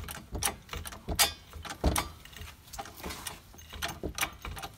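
Hydraulic floor jack being pumped to lift a car: a series of irregular metallic clicks and clanks from the pump handle and lift arm with each stroke.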